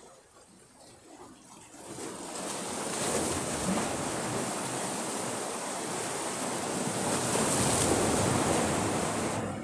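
Rough sea: surf rushing and washing against the shore for several seconds, building up about two seconds in and stopping abruptly near the end.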